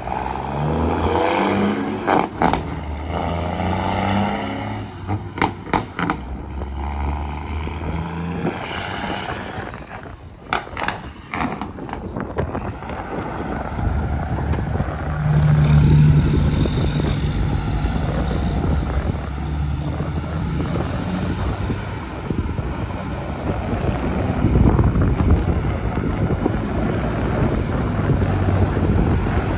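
Heavy diesel truck engines labouring on a steep grade: a dump truck pulls past with its engine note rising, then a tanker truck's engine runs steadily and loudly as it goes by. Several sharp knocks come in the first dozen seconds.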